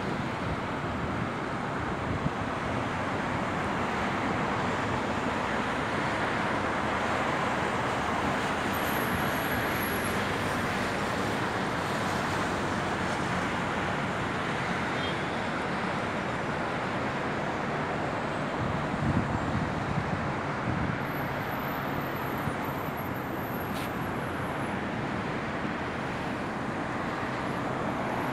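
Steady road traffic noise: a continuous rush of cars passing on a city street.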